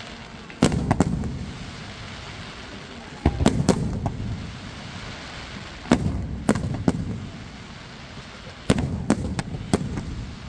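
Aerial firework shells bursting overhead in quick clusters of three or four sharp bangs every few seconds, each cluster followed by a low rolling echo, with a steady hiss between the clusters.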